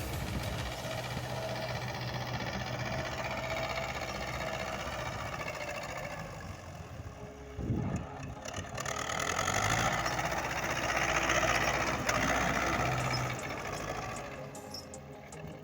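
An engine running steadily with a low pulsing beat, with a single knock about eight seconds in and a louder rushing noise after it, which eases off near the end.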